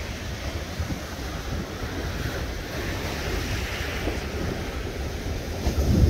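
Atlantic surf breaking and washing over coastal rocks, a steady rushing wash that swells in the middle, with wind rumbling on the microphone.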